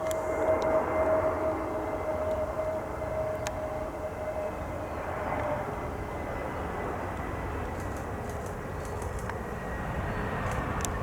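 Jet airliner engines running as the aircraft passes: a broad rush with a steady whine that dies away about halfway through.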